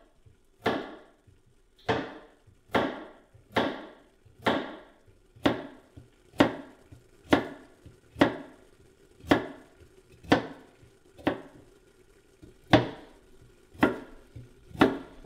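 Kitchen knife chopping carrots on a wooden cutting board: about fifteen slow, even chops, roughly one a second, each a sharp knock.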